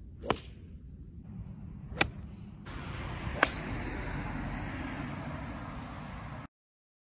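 Golf club heads striking teed golf balls: three sharp, single cracks about a second and a half apart, each a full swing hitting off the tee.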